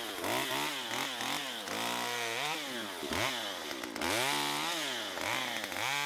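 Chainsaw cutting limbs in a brush pile, its pitch rising and falling over and over as it speeds up and bogs in each cut.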